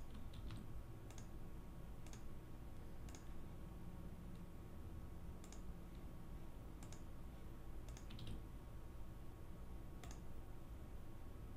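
About ten faint, irregularly spaced clicks of a computer mouse, over a low steady hum.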